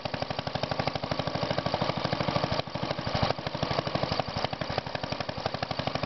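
1938 Fairbanks Morse ZD 1.5 hp single-cylinder gasoline engine running steadily with an even, rapid exhaust beat. It is throttle governed, so it fires on every cycle instead of hitting and missing.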